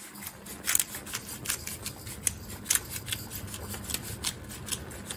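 Hand-twisted pepper mill grinding pepper over a pan, a dry crunching with irregular sharp clicks at about three or four a second.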